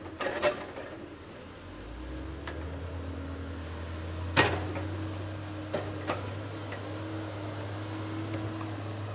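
Diesel engine of a Caterpillar knuckleboom log loader running, its note coming up deeper and louder about two seconds in as the boom and grapple work. Several sharp knocks from logs being handled, the loudest about four and a half seconds in.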